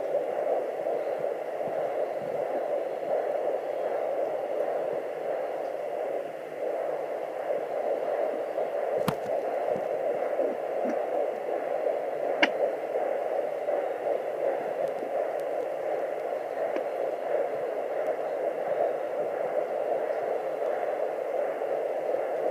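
Sonoline B fetal Doppler's speaker giving a steady whooshing static, with a sharp click about nine seconds in and another about twelve seconds in.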